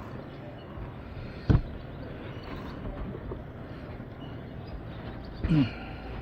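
Wind rumbling on the microphone, with one sharp thump about a second and a half in and a short falling grunt near the end.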